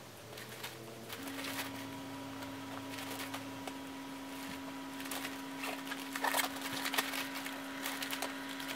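Clothes and the suitcase's nylon fabric rustling as they are handled and pressed into a packed suitcase, with scattered soft rustles and handling noises that grow more frequent in the second half. A steady low hum runs underneath from about a second in.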